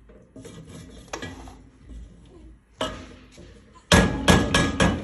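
Kitchen handling sounds: dishes and utensils clinking and rubbing, with a single knock about three seconds in and a quick run of loud clattering knocks near the end.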